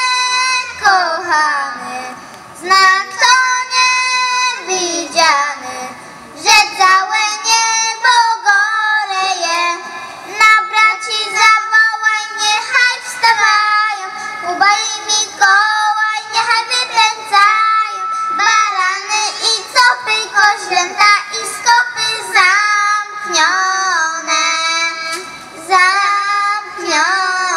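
Young girls singing a Polish Christmas carol (kolęda) together into a microphone.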